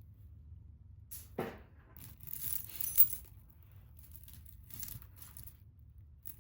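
Secondhand jewelry being handled and sorted: small metal and glass pieces clinking and rustling, with one sharp click about three seconds in.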